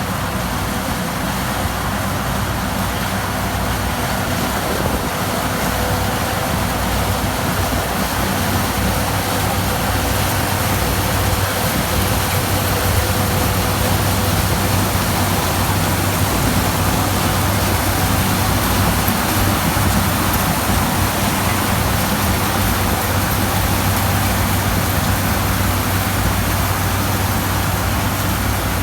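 New Holland TX34 combine harvester running steadily while harvesting corn: a low engine drone under a broad mechanical rush, growing a little louder over the first ten seconds.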